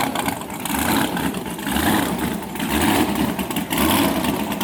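A drag-race car's engine running at idle, its low note swelling and falling about every second.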